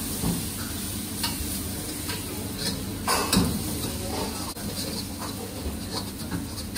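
A metal spatula scraping and stirring onion-tomato masala in a metal wok over a gas flame, the masala sizzling as it fries. The scrapes come irregularly, about one every second.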